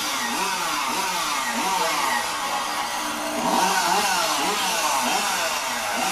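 Modified competition chainsaw running at high revs, its engine pitch rising and falling about twice a second, a little louder a few seconds in.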